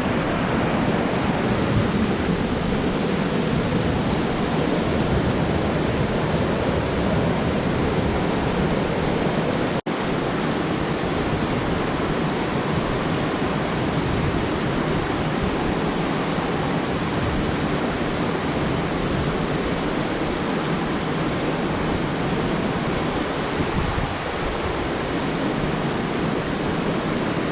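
Waterfall: a steady, loud rush of falling water, with a momentary break about ten seconds in.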